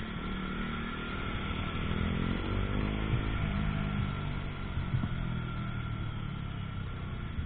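KTM Duke 125's single-cylinder four-stroke engine running as the rider moves through town traffic, its pitch shifting a few seconds in.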